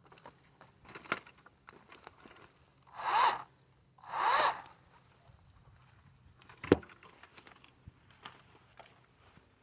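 Two short rustling scrapes about a second apart, then a single sharp knock.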